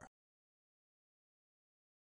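Dead silence: the sound track is cut to nothing right after the last word of a man's voice at the very start.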